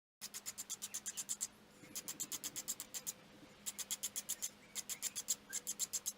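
Metal being scraped by hand to deburr the inside of a welded steel tube, so that a pin and bushings will pass through it. The scraping comes in rapid back-and-forth strokes, about ten a second, in five bursts with short pauses between them.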